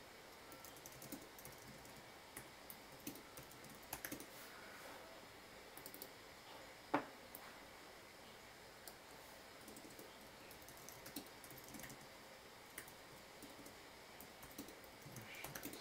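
Faint, intermittent typing on a computer keyboard: scattered keystrokes, with one sharper click about seven seconds in.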